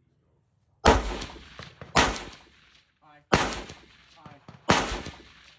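Four rifle shots from a Polish Tantal, an AK-74-pattern rifle, fired slowly and evenly about a second and a quarter apart. Each shot has a short echoing tail.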